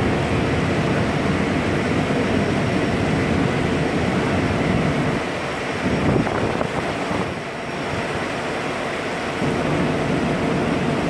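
Wind on the microphone and churning propeller wash on an open ship's deck, over a steady ship engine drone; the wind eases for a few seconds around the middle.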